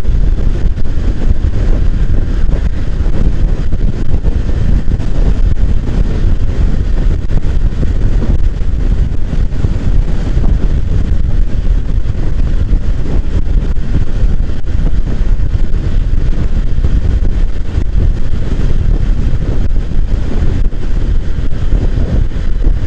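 Loud, steady wind rush on the microphone of a motorcycle riding along at speed, with the bike's running and road noise mixed in.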